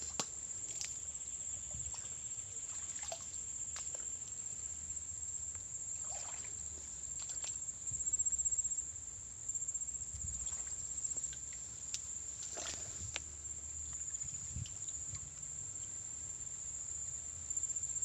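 Steady high-pitched insect drone, with scattered rustling of leaves and twigs and brushing through undergrowth.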